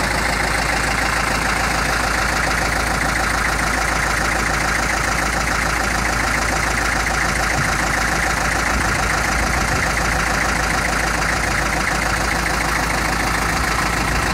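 Master 418 tractor engine idling steadily, with an even knocking beat.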